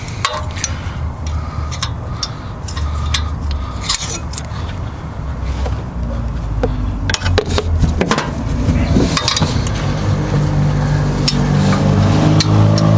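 Wrench clinking on exhaust header bolts and other metal: a scatter of sharp, irregular metallic clicks over a steady low hum, with a low droning tone growing louder near the end.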